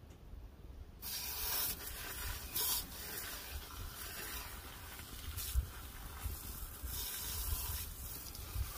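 Garden hose spray nozzle turned on about a second in, water spraying steadily onto a pickup truck's tire and alloy wheel.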